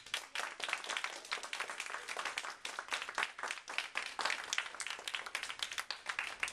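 A small audience applauding, the separate hand claps distinct and irregular.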